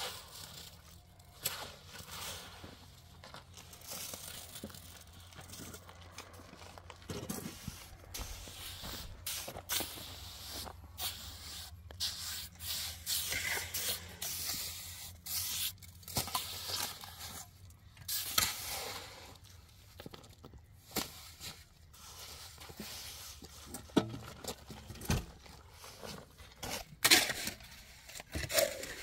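Hand tools scraping and slapping through wet cement mortar: a shovel and hoe working mortar in a steel wheelbarrow, then a trowel spreading it on concrete, in irregular strokes.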